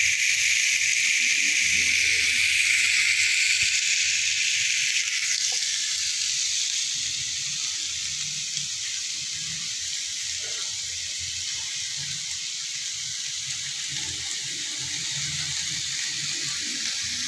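Marinated fish pieces sizzling in an oiled ridged grill pan: a steady frying hiss, louder for the first few seconds and then settling a little lower.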